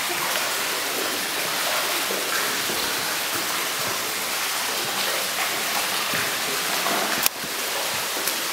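Steady hiss of water as feet wade and splash through shallow water over stones, with a single sharp knock about seven seconds in.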